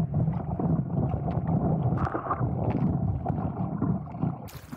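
Choppy water sloshing and splashing against a stand-up paddleboard as it is paddled along, with wind rumbling on the microphone. Near the end the sound turns brighter and hissier.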